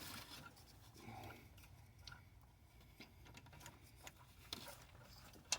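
Faint, scattered small clicks and taps of hand tools on engine parts, with one sharper click near the end.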